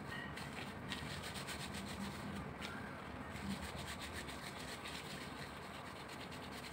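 Hands in disposable plastic gloves rolling pork and beef mince into meatballs: a steady rubbing of glove and meat between the palms, with a fine crackle from the gloves.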